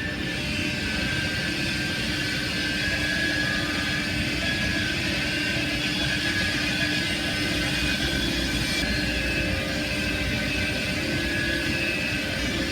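Sawmill machinery running steadily: a continuous mechanical din with a low hum and a high whine.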